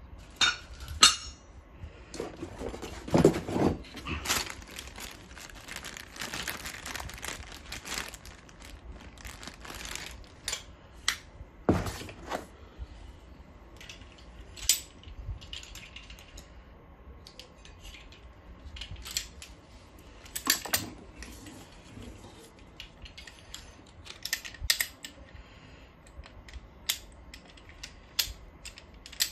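Handling noises from unpacking a steel monitor stand: a plastic bag of small metal parts rustling and clinking through the first several seconds, then scattered clicks and knocks as the parts and steel arm are moved about in the cardboard box.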